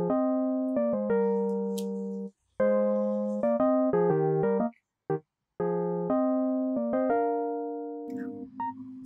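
Background piano music: short phrases of struck notes that ring and fade away, broken twice by brief silences.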